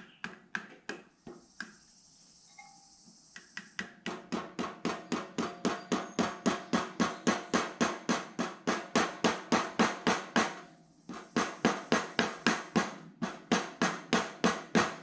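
Small mallet tapping a sand seal into the crankshaft-pulley bore of a VW air-cooled engine case to seat it: a few taps, a gap of about two seconds, then long runs of quick, even taps at about four a second, broken once by a short pause.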